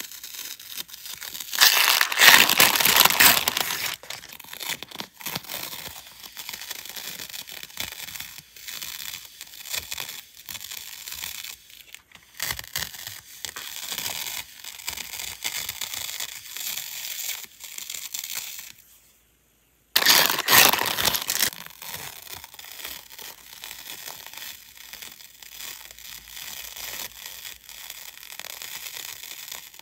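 Rolls of clear plastic washi tape being unrolled and handled: a loud peeling rip as the tape comes off the roll, twice (near the start and about two-thirds through), with softer crinkling of the plastic film in between.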